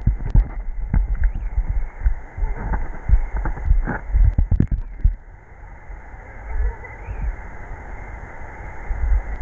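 Flowing river heard from underwater: a muffled steady rush with irregular low thumps and clicks from the current and bubbles, busier in the first half and calmer from about halfway through.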